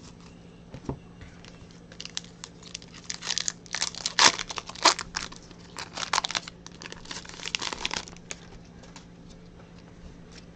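Foil trading-card pack crinkling and tearing open in a run of crackly bursts, busiest in the middle few seconds.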